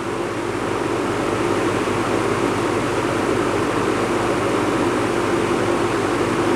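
Vintage 24-inch Pencrest reversible box fan running on high speed, blowing forward: a steady rush of air with a low motor hum. It grows a little louder over the first second or so as it comes up to speed, then holds steady.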